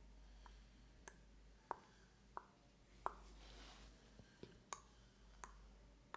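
Hands massaging an oiled leg, the slick skin giving about nine sharp, irregular clicks over a faint rubbing.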